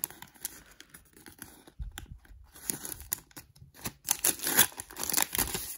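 Paper and plastic packaging rustling and crinkling in the hands as a pack of Pokémon tattoo sheets is sorted through, in irregular scrapes and small clicks that grow louder in the last two seconds.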